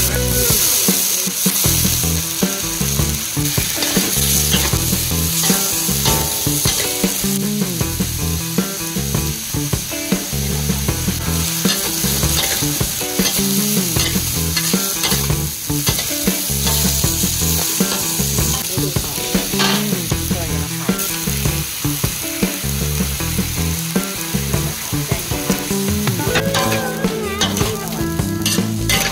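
Pork skin and shrimp sizzling in a hot wok while a metal spatula scrapes and tosses them, with frequent short scrapes and clanks of the spatula against the wok.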